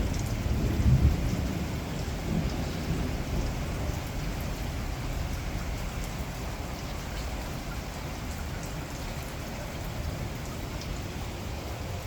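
Thunder rumbling and dying away over the first few seconds, with a last swell about a second in, over steady rain falling throughout.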